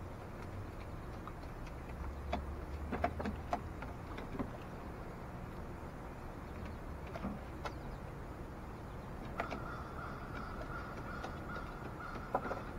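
Crows pecking and dipping their beaks into a plastic bowl of water and popcorn: a run of sharp taps and clicks, mostly in the first third, with a few more later. A faint steady high tone joins about three-quarters of the way through.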